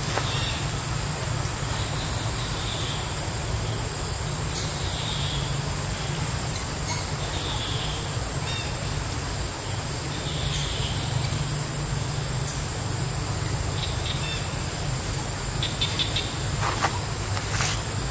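Outdoor ambience of a steady high-pitched insect drone, with short bird calls every few seconds over a low rumble, and a few sharp clicks near the end.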